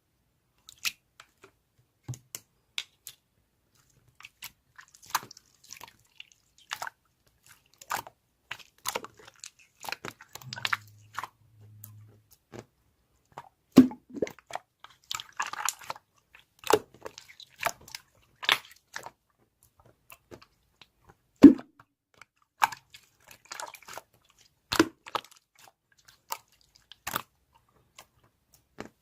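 Irregular crunching and chewing: crisp food being bitten and chewed in short, scattered bites with pauses between them.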